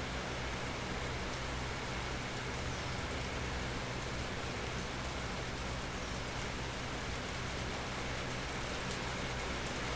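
Steady rain falling and pattering on surfaces, an even continuous hiss with fine drop ticks throughout.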